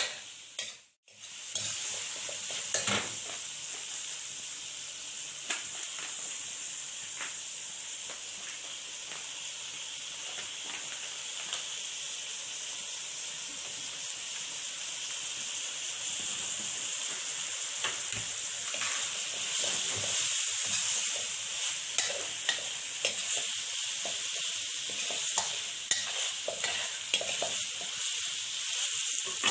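Chopped meat with chillies sizzling in a nonstick wok as it is stir-fried, with scattered scrapes and taps of a metal spatula against the pan. The frying breaks off briefly about a second in, then runs on steadily.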